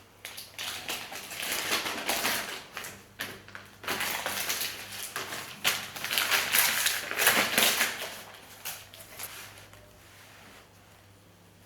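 Packaging being handled during a guitar unboxing: a rustling, crinkling run of wrap and packing material with small clicks. It is loudest about two-thirds of the way through and fades out near the end.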